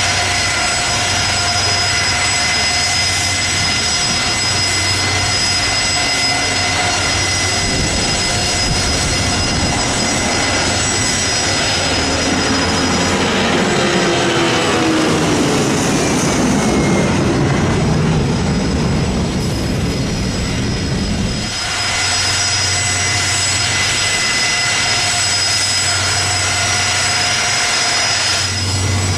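Steady jet-engine whine. About twelve seconds in, it gives way to the heavy rumble of a Boeing 757's jet engines at takeoff thrust as it climbs past, the sound falling in pitch as it goes by. The rumble cuts off abruptly, and the steady high whine of Gulfstream business jets' engines idling as they taxi remains.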